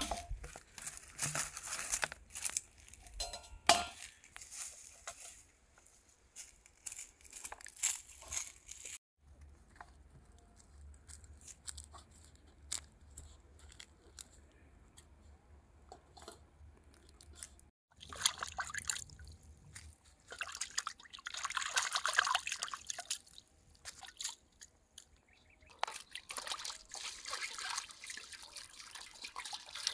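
Water being poured and splashing, in separate bursts, with sharp clicks and handling noises in the first third and a quieter stretch in between.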